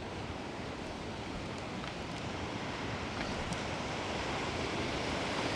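Steady rushing of river water, with wind on the microphone, slowly growing louder.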